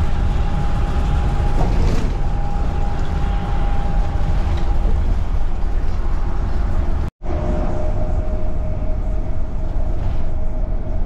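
Motorhome driving at road speed, heard from inside the cab: a loud, steady drone of engine and tyre noise with a faint steady whine. It drops out for an instant about seven seconds in, then carries on with the whine a little lower.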